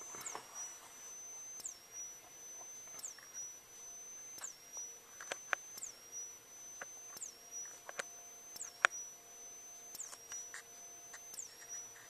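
High-pitched whine from a Wheelock WS-24VDC strobe's flash-charging circuit. After each flash it drops sharply in pitch and then holds steady, repeating about every 1.4 seconds. A few faint clicks are scattered through it.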